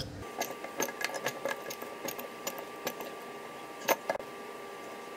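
Plastic soap bottle crackling and clicking irregularly as it is held upside down and squeezed while it empties into a sink soap dispenser's reservoir, with two sharper clicks about four seconds in.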